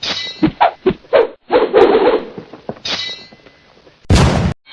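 A rapid string of short, separate sound effects dubbed one after another, then a loud noisy burst about four seconds in.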